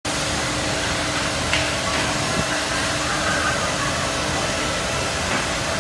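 Steady mechanical noise of a CNC nesting router at work: its spindle and dust extraction running, with a low steady hum underneath.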